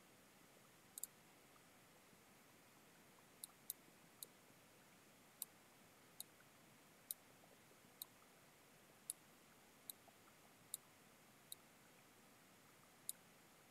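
Computer mouse clicking: about a dozen short, sharp clicks at irregular intervals, roughly a second apart, over near silence.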